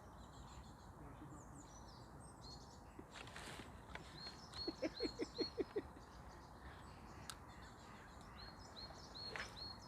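Faint outdoor ambience with small birds chirping, short high calls repeated again and again. About halfway through comes a quick run of about seven low pulses in under a second, the loudest sound here.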